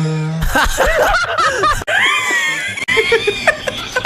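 People laughing hard in high-pitched, breathless bursts: wheeze laughter.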